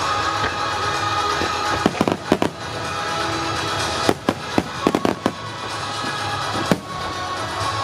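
Star mine fireworks bursting in rapid volleys of sharp bangs, with a few about two seconds in, a dense flurry around four to five seconds and another bang near the end, over steadily playing music.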